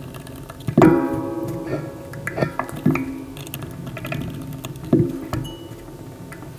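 Background music of slow plucked guitar notes, one struck every second or two and left to ring out.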